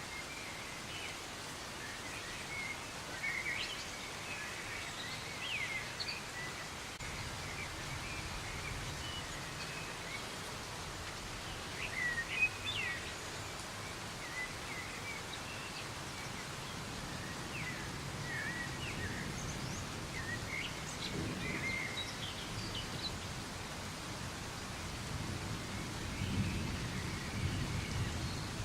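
Steady soft rain hiss, with birds chirping in short scattered calls throughout. A low rumble swells in the second half.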